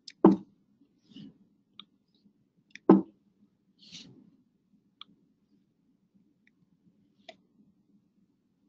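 Scattered sharp clicks over a faint low hum, with two louder knocks about a third of a second in and about three seconds in.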